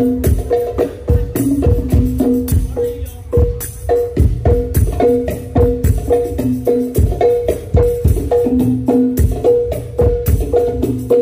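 Hadroh percussion ensemble playing a steady, even rhythm: hand-struck drums and rebana frame drums sounding two alternating drum pitches, with a jingle tambourine shaking over them.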